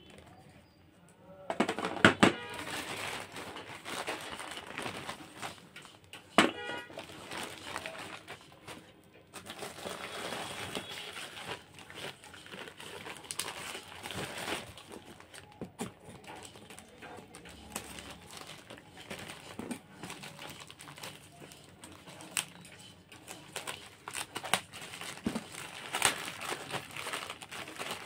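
Plastic bag crinkling and rustling as hands open and handle a bag of clay pieces in a cardboard box, with a few sharp knocks, the loudest about two seconds in.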